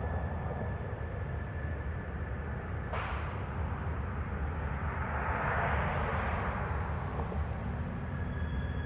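Norfolk Southern train passing: a steady low rumble of wheels on the rails, with a sudden rush of noise about three seconds in and a hiss that swells and fades a few seconds later.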